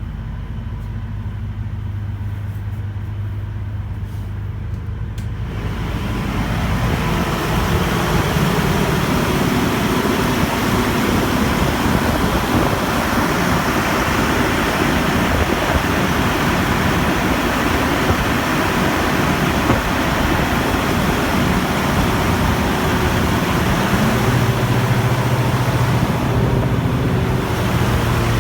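Truck running on a chassis dynamometer's rollers, a steady mechanical din. It begins as a low hum, then grows much louder and fuller about five seconds in, as if coming from right beside the truck.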